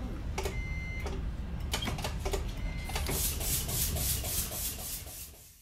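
Hot-air seam-taping machine running on a neoprene wetsuit seam: a steady low hum with a few sharp clicks and two short high tones, then quick rhythmic ticking of about five beats a second as the material feeds through. The sound fades out near the end.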